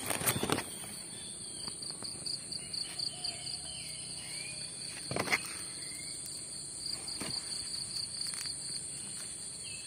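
Insects trilling steadily: a high pulsing trill of about four pulses a second over a higher, continuous whine. A few brief brushing knocks cut in, the loudest right at the start and about five seconds in.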